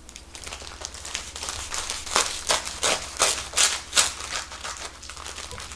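Chef's knife sawing through a sandwich wrapped in parchment paper. The paper crinkles and crackles with each stroke, lightly at first, then in a run of about six sharper strokes a few tenths of a second apart around the middle.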